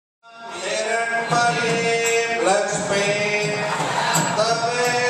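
Devotional music with a voice singing long, held chant-like lines. It fades in after a brief dropout at the very start.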